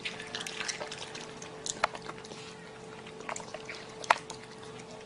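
A raccoon chewing grapes with wet, irregular smacking and clicking mouth sounds, with a sharper click about two seconds in and the loudest one about four seconds in. A faint steady hum runs underneath.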